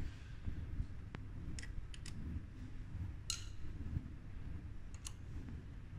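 About five short, sharp metallic clicks spread unevenly over a few seconds, from hands and a tool working on an e-bike rear hub motor and its freewheel, over a low rumble of handling noise.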